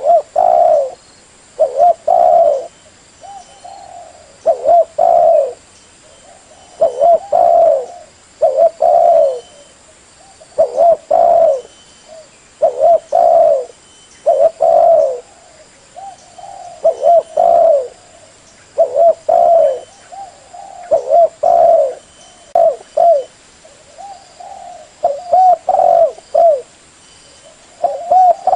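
Spotted dove (terkukur) cooing: loud phrases of a few low coo notes, repeated about every two seconds.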